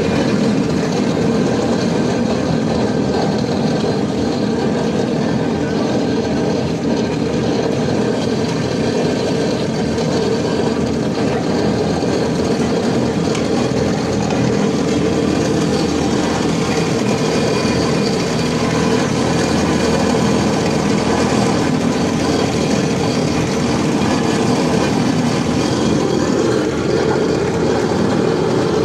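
Heavy diesel machinery running steadily, a continuous loud engine noise with no letup.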